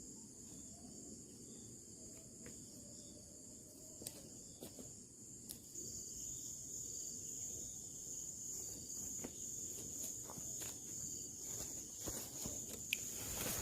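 Insects shrilling in a steady high-pitched drone that grows louder about halfway through, with a few scattered light clicks.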